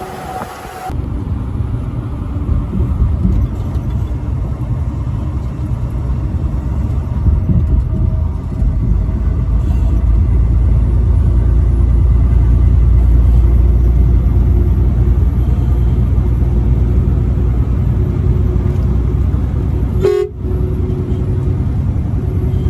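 Truck rolling on the highway: a loud, steady low rumble of engine and road, with a horn tone held over it. The horn is clearest near the end, just after a brief dip in level.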